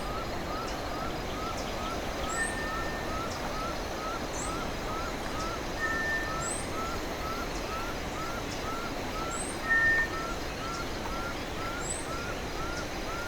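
Tropical forest ambience of animal calls over a steady background hiss. A short rising call repeats about three times a second, a higher chirp comes every second or two, and a brief level whistle sounds every three to four seconds, loudest about ten seconds in.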